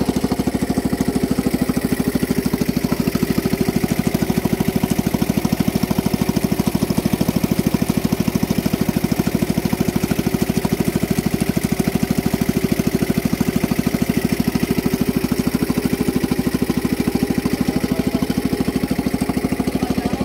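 Small boat's motor running steadily, a fast, even putter with no change in speed.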